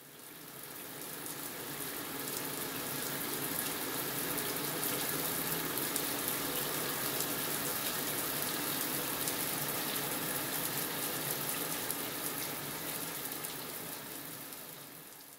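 Running water from a tap flowing steadily over a sheet of watercolor paper lying in a tub, wetting the paper. It fades in at the start and fades out near the end.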